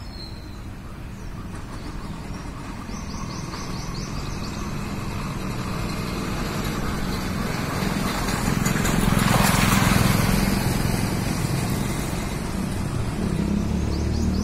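Wind noise from a dust devil whirling close by, a steady rush that grows louder to a peak about two-thirds of the way through, then eases slightly.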